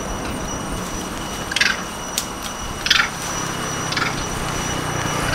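Loud, steady high-pitched screech made of a few unwavering tones, which the rider takes for insects, over wind and tyre noise from the moving trike. Three short chirps cut through it, and a low hum comes in past the middle.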